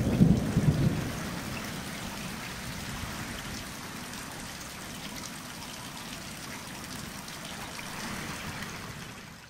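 Rain falling steadily during a thunderstorm, an even hiss throughout, with a louder low sound in the first second.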